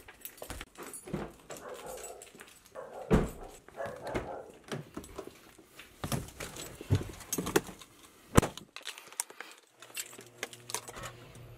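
Footsteps, door handling and clicks as a person walks out to a car and gets in, with a sharp thump about eight and a half seconds in as the car door shuts. A low steady hum starts near the end as the car is switched on.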